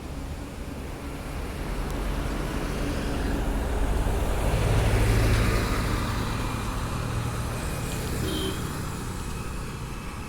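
A large diesel coach bus driving past: its low engine drone and road noise swell to a peak about five seconds in, then fade as it moves away.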